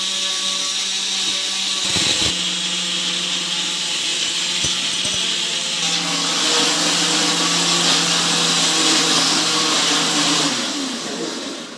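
Electric mixer grinder running steadily as it grinds masala in its jar. It cuts out briefly about two seconds in, restarts, changes note about halfway and winds down near the end.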